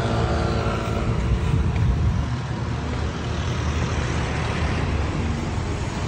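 Road traffic: vehicle engines running close by, with a steady low rumble. A pitched engine drone stands out in the first second or so, then fades.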